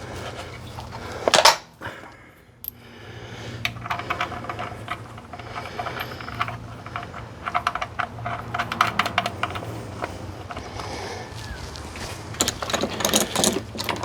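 Metal hardware and hand tools clinking and rattling in irregular clicks, with one louder clank about a second and a half in, as transmission-to-adapter bolts are fitted. A steady low hum runs underneath.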